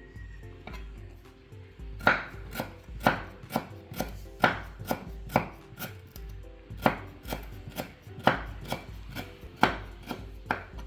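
A quick, uneven series of sharp knocks, about two or three a second, starting about two seconds in.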